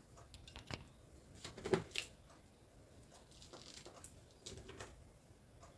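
Faint rustling and a few light taps of net fabric being handled and laid over cloth stretched on an embroidery hoop. The loudest rustle comes about two seconds in, with another small cluster near the end.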